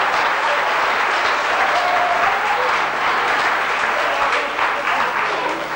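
An audience applauding, a dense, steady clapping that starts to die away at the very end.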